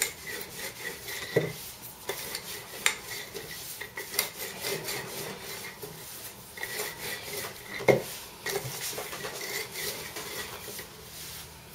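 Wooden rolling pin rolling dough flat on a floured wooden board: a steady rubbing, rolling sound with a few sharp knocks, the loudest about eight seconds in.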